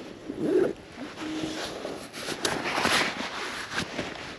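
Close rustling and scraping of clothing and backpack fabric rubbing against the camera microphone as it is handled, with scattered small clicks, loudest about three seconds in. A brief low murmur is heard in the first second.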